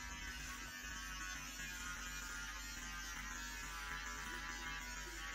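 Battery-powered electric hair clipper buzzing steadily as it is run through a boy's short, tightly curled hair.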